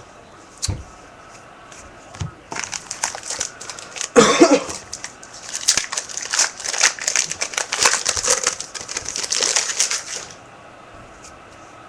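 Trading card pack wrapper being torn open and crinkled by hand: a dense, crackling rustle of many small snaps, loudest as the pack rips about four seconds in, stopping suddenly near the end.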